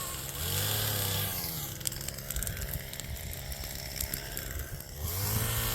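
Chainsaw revving up and dropping back, then a rougher stretch with sharp snaps and crackles, then revving up again about five seconds in, while burnt deadfall is being cut.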